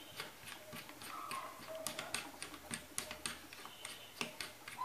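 Irregular light clicks and taps, about two to three a second, from the hand-held electric drill and the wooden mini lathe's metal-and-MDF parts being handled. The drill motor is not running.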